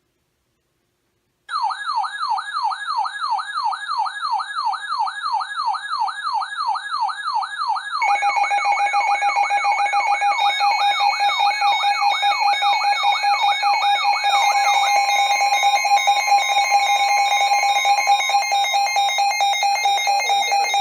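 Electronic alarm tones: a fast warbling siren sweep rising and falling about four times a second, joined about eight seconds in by steady tones and a pulsed high beeping, all cutting off together near the end.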